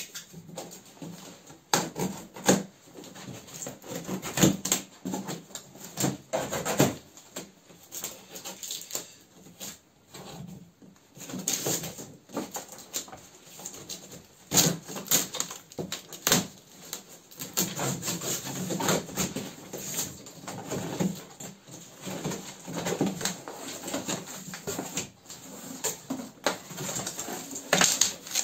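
Cardboard shipping box being unpacked: plastic strapping bands pulled off and the taped flaps torn open, a run of irregular rustles, scrapes and knocks.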